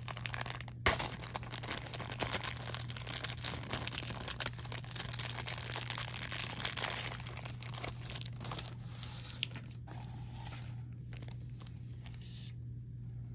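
Blind-box packaging crinkling and tearing as a figure is unwrapped by hand. The noise is busiest for the first several seconds and thins out toward the end, over a steady low hum.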